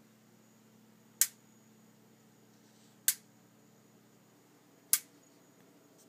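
Gas stove ticking: three sharp clicks a little under two seconds apart. The owner suspects the stove's electronic ignition is faulty.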